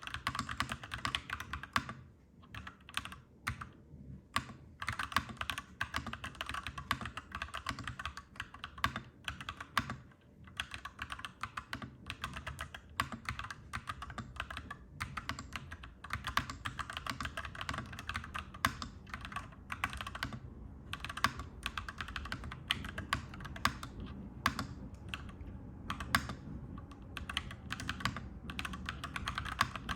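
Typing on a clacky mechanical keyboard: rapid key clacks in runs with brief pauses. A low rumble runs underneath and grows stronger about halfway through.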